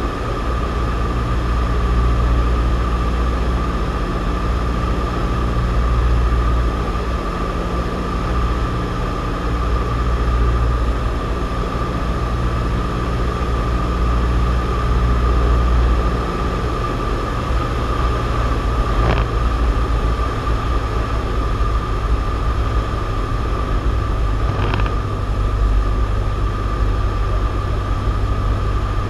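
Cessna 172's piston engine and propeller droning steadily in flight, heard inside the cockpit, with a steady high whine over it. The deep engine note weakens and then returns about two-thirds of the way through, and there are two faint clicks.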